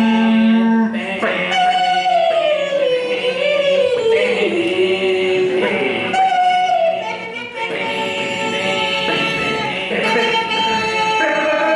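Music with singing: a voice holds long notes and slides slowly down in pitch over several seconds, over other sustained tones.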